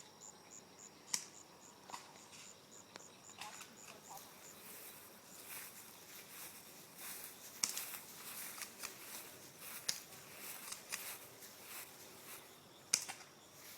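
Crickets chirping in a fast, even pulse for the first few seconds, then soft rustling with scattered sharp clicks and ticks.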